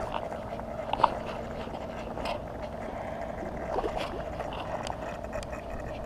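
Steady hiss of heavy rain, with a sharp click about a second in as the spinning reel's bail snaps shut after a cast, then a few lighter handling clicks as the line is reeled in.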